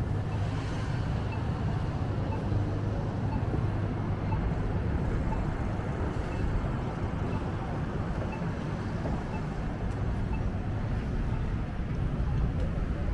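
Street traffic noise: a steady rumble of motor vehicles on a city street, with a faint, regular high tick about twice a second.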